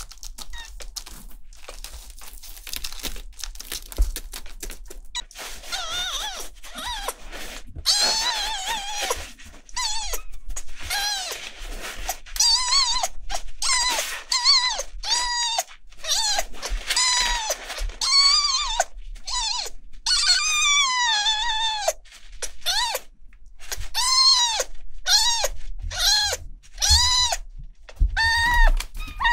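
Newborn kitten crying, a long run of short, high meows that each rise and fall, roughly one a second, starting about five seconds in after some soft tissue rustling.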